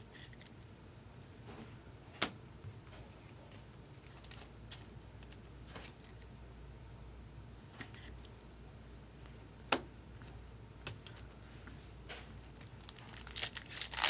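Trading cards and pack wrappers being handled: faint rustling and crinkling with scattered light ticks, and two sharp clicks, about two seconds in and near ten seconds, over a low steady hum.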